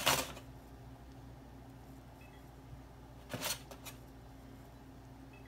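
A metal ladle scooping tomato sauce out of a parchment-lined baking pan: a short scrape right at the start and another about three and a half seconds in, followed by two small clicks.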